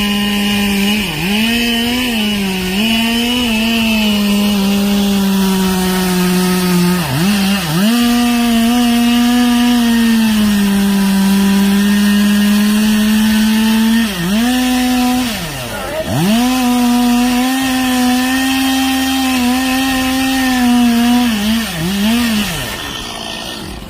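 Chainsaw running at high revs, cutting into wood. The engine note sags several times as the chain bogs down in the cut and then picks back up, and it stops near the end.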